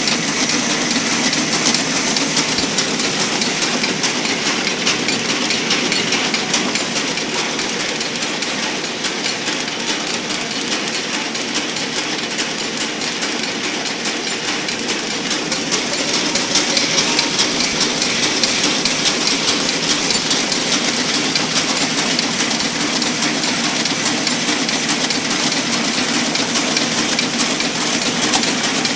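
Automatic paper cup counting and packing machine running: a steady mechanical clatter thick with rapid ticking.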